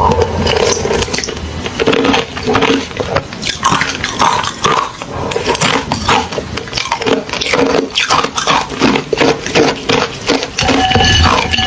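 Hollow ice being bitten and chewed: a dense, irregular run of sharp cracking crunches.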